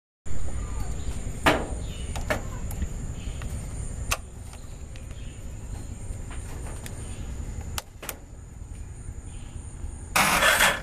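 Sharp clicks from a motorcycle's ignition key and switches as the ignition is switched on, over a steady low rumble of handling noise. The loudest click comes about a second and a half in. A loud, harsh burst of noise starts near the end.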